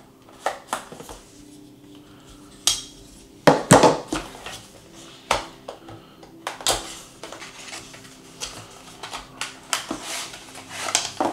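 Handling noise from a small pen box being opened and unpacked: irregular clicks, taps and scraping rustles of the packaging, with the loudest bursts about three and a half seconds in, again around six and a half seconds, and near the end.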